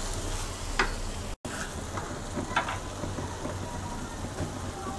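Wooden spatula stirring and scraping Maggi noodles in a non-stick wok over light sizzling, with a few short scrapes about a second in and again past two and a half seconds.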